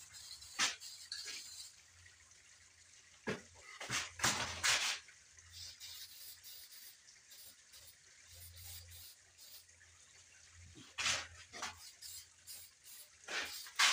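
Aerosol can of orange spray paint sprayed in several short hissing bursts with pauses between, the longest about four seconds in.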